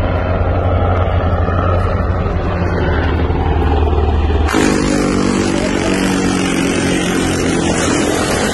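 Motor vehicle engine running loud and close. About halfway through, the sound changes abruptly to a higher, harsher engine note with a strong hiss over it.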